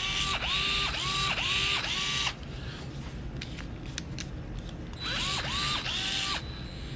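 DeWALT 8V MAX gyroscopic screwdriver's small motor whirring in short bursts, about two a second, each spinning up to speed and stopping as the tool is twisted. Five bursts, a pause of about three seconds with a few light clicks, then three more bursts.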